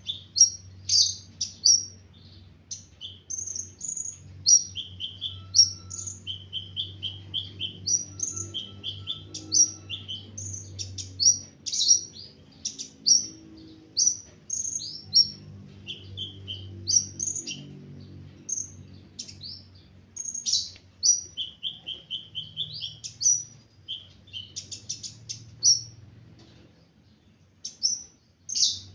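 Caged sunbird, the Indonesian 'ninja hummingbird' (burung konin), singing: a steady run of quick, high, chirping notes and short trills with hardly a pause. A faint low hum lies underneath.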